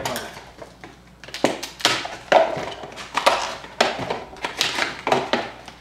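Sealed trading-card packs being handled and set down on a wooden table: a run of short rustles, scrapes and light knocks, starting about a second and a half in.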